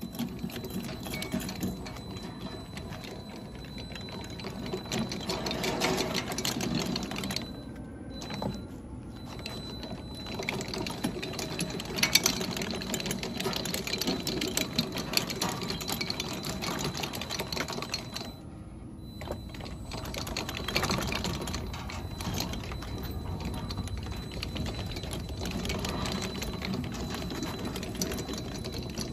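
Electric tracked robot crawling, its drive motors whirring and its roller-chain tracks clattering over the sprockets in a fast, continuous run of ticks. The running dips briefly near 8 seconds and again near 19 seconds.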